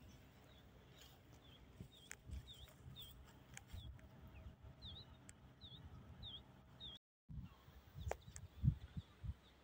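A small bird chirping repeatedly: short calls that dip and rise in pitch, about two a second in runs, over a faint low rumble.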